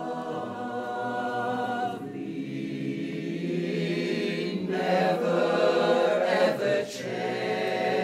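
Mixed-voice barbershop chorus singing a cappella in close harmony, holding long chords. The sound swells louder about five seconds in, with a short break near the seventh second before the chord resumes.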